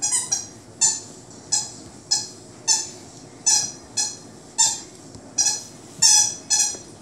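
About a dozen short, high-pitched squeaks in a steady run, roughly two a second, each fading quickly.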